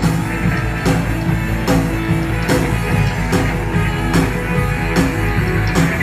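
A live rock band playing through PA speakers: electric guitars and a drum kit, with a drum hit about every 0.8 seconds under sustained guitar notes.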